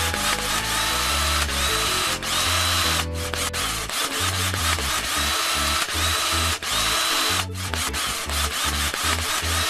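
Toy Bosch cordless drill running with a continuous drill whir, stopping briefly twice, about three seconds in and again near the eight-second mark.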